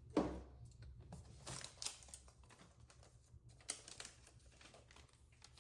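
Soft rustling and light clicks from the laptop and its paper wrapping being handled, with one sharper click just after the start and faint scattered ticks after it.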